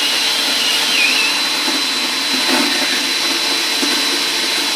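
Chauvet Funfetti confetti machine's blower fan running steadily with a high whine, blowing loaded confetti out into the air.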